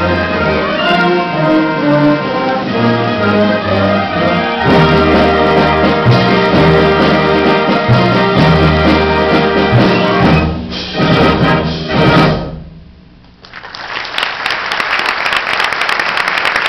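Concert band with brass and low bass playing the final bars of a piece, ending on a held chord that cuts off about twelve seconds in. After a brief pause the audience applauds.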